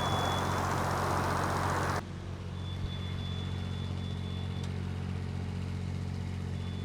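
An engine running steadily with a low hum. A loud hiss over it cuts off sharply about two seconds in, and a faint high whine comes and goes.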